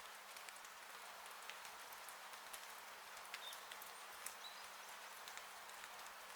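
Rain on a porch roof: a faint steady hiss with irregular drops ticking and tapping, over a thin steady low hum.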